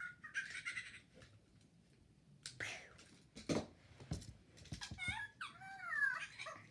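Slime being worked in the hands, giving a few short wet pops and clicks. About five seconds in comes a high, wavering whine that glides up and down in pitch.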